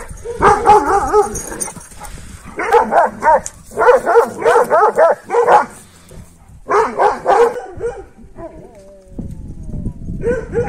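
Kangal shepherd dogs alarm-barking in repeated bouts of several deep barks with short pauses between. The barking stops about three-quarters of the way through, followed by a brief whine and a low rustling.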